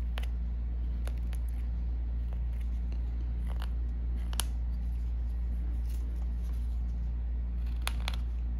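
Carving knife cutting small chips off a hand-held piece of wood: short, sharp snicks now and then, two in quick succession near the end, over a steady low hum.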